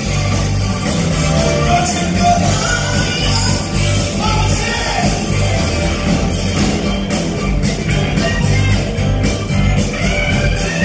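Live funk band playing: drums, bass guitar, keyboards and saxophone, with sung vocals over a steady beat.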